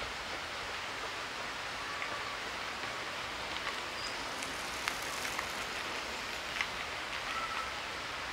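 Steady hiss of outdoor-style ambience, like rain or running water, with a few faint short chirps and light clicks scattered through it.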